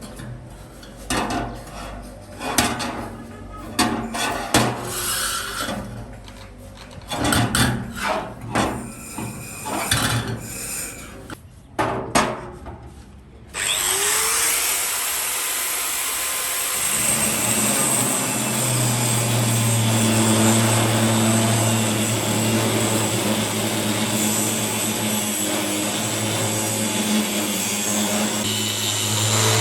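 Hand work on metal and wood: irregular knocks and scraping strokes. About halfway through, a power tool switches on and runs steadily with a low hum, as used in knife restoration to grind or sand the rusty blade.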